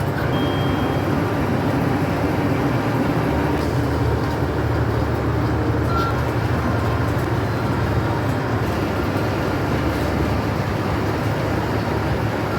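Steady low rumble of a KiHa 85 series diesel railcar, unchanging throughout.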